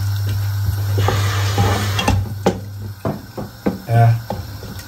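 Tomatoes and onions sizzling in a nonstick pot while a wooden spoon stirs and scrapes them. Several sharp knocks come from the spoon against the pan, over a steady low hum.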